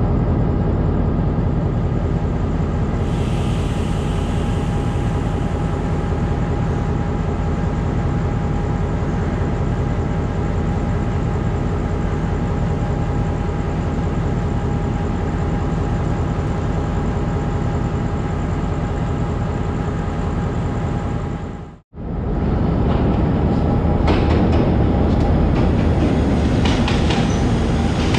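Sri Lanka Railways Class M6 diesel-electric locomotive running steadily, with a constant tone over its engine note. After a sudden cut about 22 seconds in, another Class M6 locomotive rumbles past close by, with clicks from its wheels.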